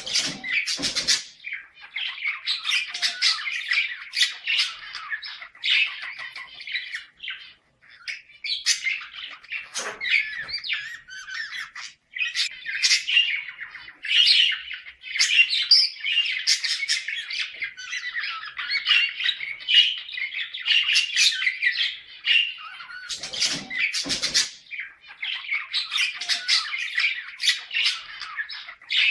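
Budgerigars chattering and warbling nonstop, with sharp squawks and chirps mixed in and a couple of brief pauses. This is the breeding-condition chatter of budgies, the kind of sound played to pet pairs to bring them into breeding mood.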